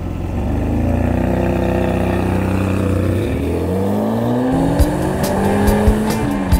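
Sports-car engine sound accelerating: it rises in pitch, drops once as if shifting gear about three and a half seconds in, then climbs again. A ticking music beat comes in near the end.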